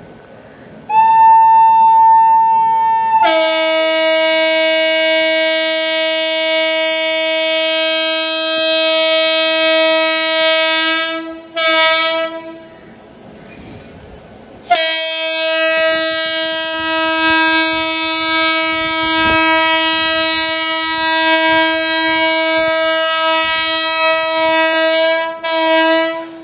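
Horn of a WAP7 electric locomotive sounding in long blasts. A higher note for about two seconds gives way to a lower note held for about eight seconds. After a short toot and a pause comes a second long blast of about ten seconds, then one more short toot near the end.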